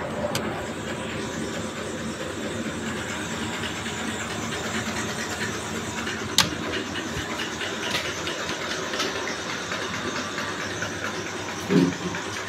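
A buffalo being hand-milked: milk streams squirt and hiss steadily into a frothy aluminium pail. There is a sharp click about six seconds in and a short, louder low sound near the end.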